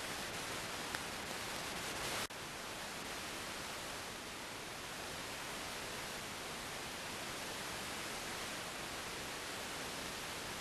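Steady hiss of static from a weak analogue VHF television signal received over tropospheric propagation. The hiss drops out sharply for an instant about two seconds in.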